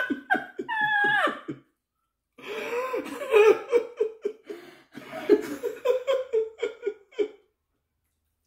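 Laughter: a short laugh, a brief pause, then a long bout of rapid, rhythmic laughing that dies away about seven seconds in.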